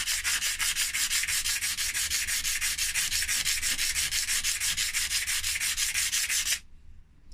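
Red Abralox emery cloth rubbed by hand in fast back-and-forth strokes along a flat steel bar, about seven strokes a second, scrubbing off the black scale that comes on steel sheet. The work is hard going. The strokes stop abruptly about six and a half seconds in.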